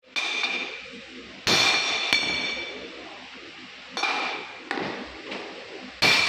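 A hammer striking laser-welded rectangular steel tubing in a series of blows of varying strength, the hardest about a second and a half in and right at the end. Each blow is a sharp clang, with the steel ringing after it. The hammering is a strength test of the laser-welded corner joints.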